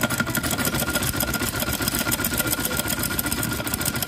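Domestic straight-stitch sewing machine running at speed, a rapid, even clatter of stitching with a steady high whine, as a sleeve seam is sewn onto a kameez.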